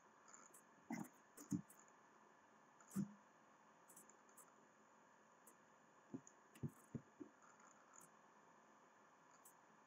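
Computer mouse clicking, about seven short clicks in small groups over near-silent room tone.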